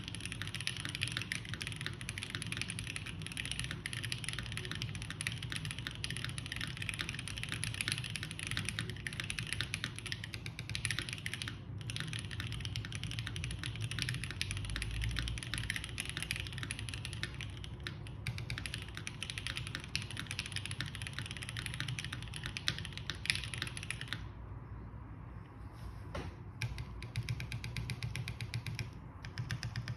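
Typing on a gasket-mounted Keycult No. 1 Rev. 2 mechanical keyboard with lubed JWK Alpaca linear switches, a polycarbonate plate and GMK keycaps: a steady, rapid stream of keystrokes.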